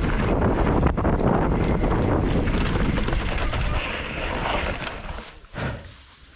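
Wind rushing over the action camera's microphone and tyres rolling over a dirt forest trail as a downhill mountain bike descends, with a few sharp knocks from bumps. About five seconds in the noise fades away as the bike slows to a stop.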